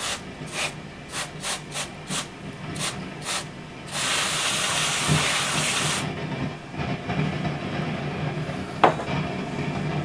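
Aerosol freezer spray (component cooler) hissing in about eight quick squirts, then one loud two-second blast about four seconds in, with a single click near the end. It is being sprayed onto valve-amp tone-circuit parts to find a thermally noisy component, over the amplifier's steady low hum.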